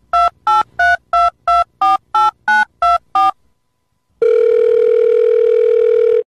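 Touch-tone telephone dialing: ten short keypad beeps, about three a second, then after a short pause a steady tone lasting about two seconds.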